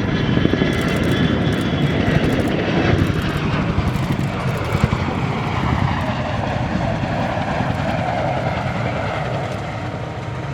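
Boeing CH-47J Chinook tandem-rotor helicopter in flight, its twin turboshaft engines and rotors giving a loud, fast-pulsing beat. A high turbine whine fades out over the first few seconds.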